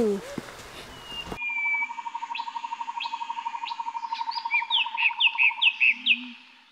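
Woodland birds calling: a steady, rapidly pulsing trill runs under short sharp chips, then near the end a run of four or five quick descending whistled notes.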